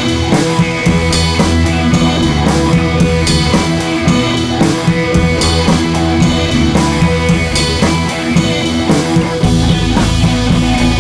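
Rock background music with a steady drum beat.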